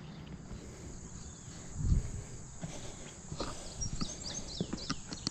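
Footsteps on a dirt barn floor, with a dull thump about two seconds in and a few light clicks and knocks later on.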